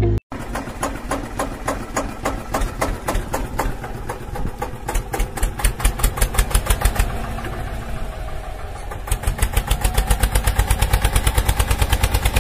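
Small motor of a homemade toy tractor running with a fast, regular clicking rattle, several clicks a second, louder in pulses around the middle and again near the end.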